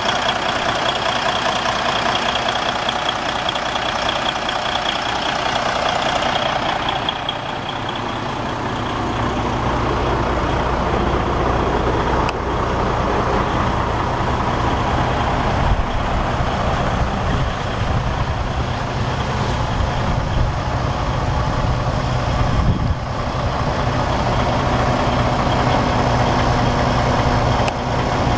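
Freightliner Cascadia's Detroit diesel engine idling steadily. For the first several seconds it is heard up close with more higher-pitched mechanical sound; from about eight seconds in, a deeper steady rumble takes over.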